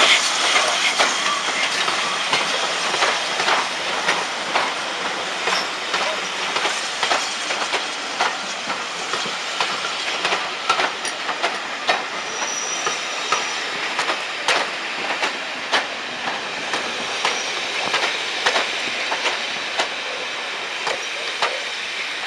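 Train of passenger coaches rolling past, its wheels clicking over rail joints. The sound slowly fades as the train moves away.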